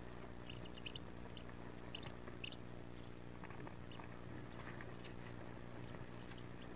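Wood duck ducklings giving scattered short, high peeps over a steady low hum.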